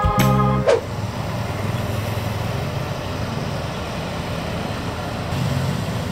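Background organ-like music ends with a falling glide under a second in, then a motor vehicle runs steadily, a low engine hum under road noise.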